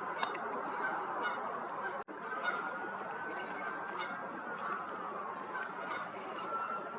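Bull elk bugling: a high, thin whistle that rises and holds for about two seconds, then slides down, with another whistle starting near the end, over steady background noise.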